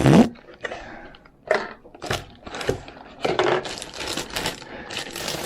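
Irregular clicks, rustles and light knocks of packaging being handled and pulled off an external hard drive.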